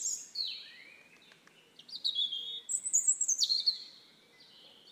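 Bird song: a series of high, clear whistled notes, each sliding downward in pitch, loudest and busiest from about two to three and a half seconds in.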